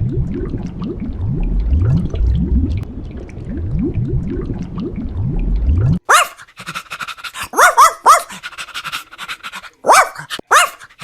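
Dog sounds. First about six seconds of low, rhythmic rising sounds, then, after an abrupt cut, high-pitched whines and short yips.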